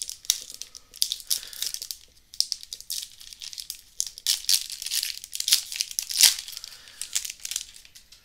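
Hockey card pack wrapper being torn open and crinkled by hand: an irregular crackling of the wrapper that dies away near the end.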